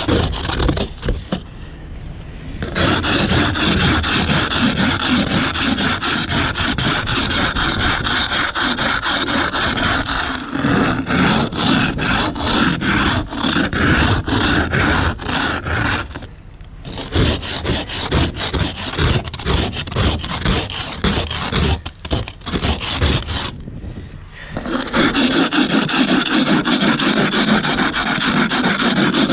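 Ice scraper scraping a crust of freezing-rain ice off a car's side window and roof in rapid repeated strokes, with a few short pauses. The ice is not frozen very hard.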